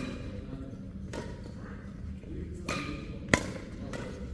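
Badminton rally: a few sharp racket strikes on a shuttlecock, the loudest about three seconds in.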